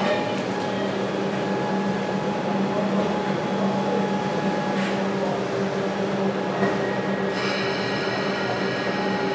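Steady mechanical hum of an underground rail station, a low drone with fainter higher tones held at an even level; a light hiss joins in about seven seconds in.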